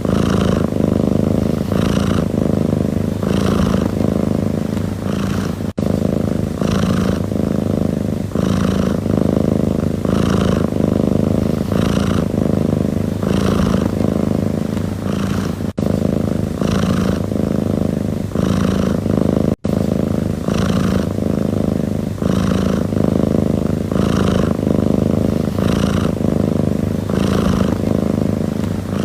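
Domestic cat purring steadily, close to the microphone, pulsing about once a second, with a few momentary dropouts.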